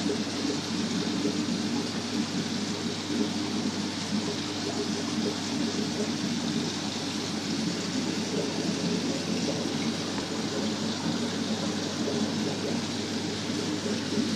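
Steady water noise of aquarium tanks, bubbling and trickling from filtration and aeration, over a low steady hum.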